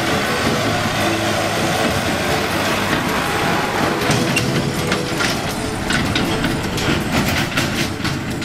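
Farm tractor running as it tows a trailer over a rutted dirt road, the trailer body rattling and clanking. Sharp knocks come thick in the second half, and the sound cuts off suddenly at the end.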